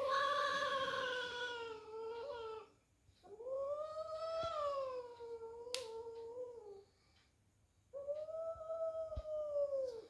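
A cat caterwauling: three long, drawn-out wails in a row, each two to three seconds long, rising a little then sagging in pitch, the threatening yowl of a cat squaring up to fight. A single sharp click falls about halfway through.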